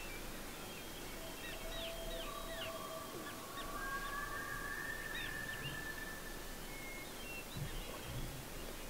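Faint birds calling over quiet outdoor ambience: a run of short, falling chirps, then several long, clear whistled notes held at different pitches.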